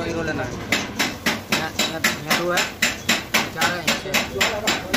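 A hammer striking steadily in a fast, even rhythm of about four blows a second, starting about a second in.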